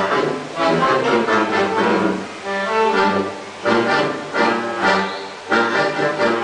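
Klezmer ensemble of flute, clarinets, bass clarinet and tuba playing a tango, with strongly accented notes pulsing through the melody.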